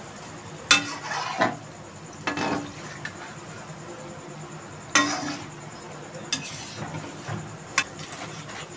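Tal phuluri (palm-fruit fritters) deep-frying in a wok of hot oil with a steady sizzle. A metal slotted spoon stirs and lifts them, clinking sharply against the aluminium wok about five times.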